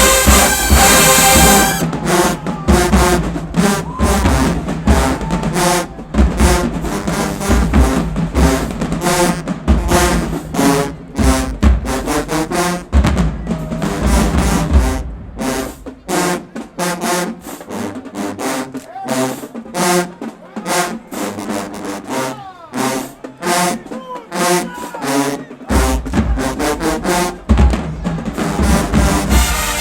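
Marching band playing a drum-heavy passage: the drumline's snare rolls and bass drum strikes drive it, with brass chords sounding under and between the drums.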